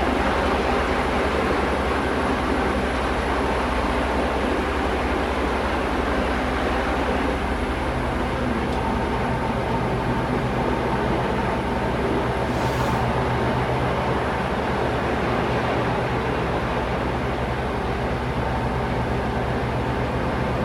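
Helicopter hovering close by: steady rotor chop and turbine noise, its tone shifting slightly about eight seconds in.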